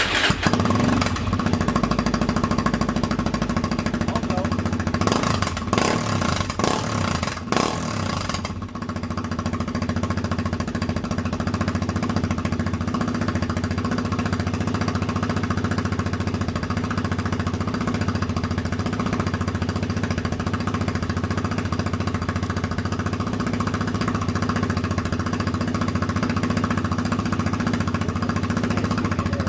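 Suzuki LTZ 400 quad's single-cylinder four-stroke engine running through a Leo Vince aftermarket exhaust with a racing end cap. It comes in loudly at the start, is given several quick throttle blips in the first eight seconds or so, then settles to a steady idle.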